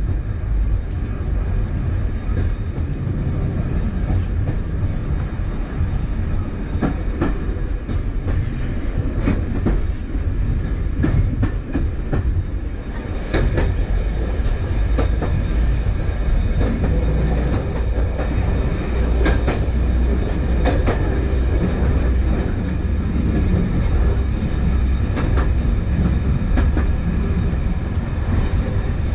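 British Rail Class 144 Pacer diesel unit running: a steady low diesel rumble with irregular sharp clicks and clacks throughout.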